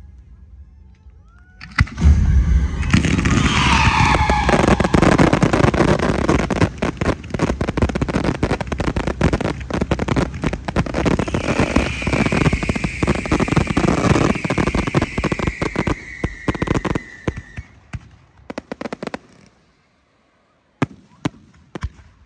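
Fireworks barrage: after a quiet start, a dense run of rapid bangs and crackling sets in about two seconds in and goes on for some fifteen seconds, with a long whistle that falls slightly in pitch over it in the middle. It dies away, then a few single bangs go off near the end.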